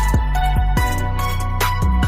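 Background music with a steady beat: deep bass hits that drop in pitch, sharp percussion about two or three times a second, and held melodic notes.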